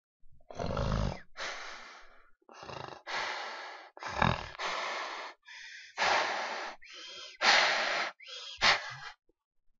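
A person's voice making harsh, breathy monster noises: about ten raspy breaths, gasps and growls in short bursts, each under a second long.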